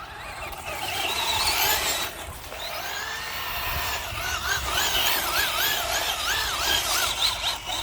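Electric motor of a radio-controlled car (Traxxas Slash) whining under throttle, its pitch swinging up and down rapidly over the middle of the clip as the throttle is pumped, over a steady hiss of tyres on the wet ground.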